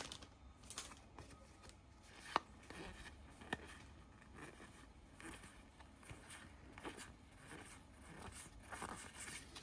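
Faint handling of a Pokémon booster pack and its cards: soft rustles and scrapes, with two sharp light taps a couple of seconds in and about a second later.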